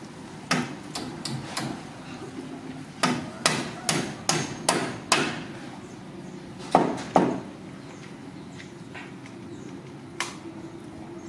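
A series of sharp knocks: a few in the first second or two, a quicker run of six about three to five seconds in, two close together around seven seconds, and one more near ten seconds.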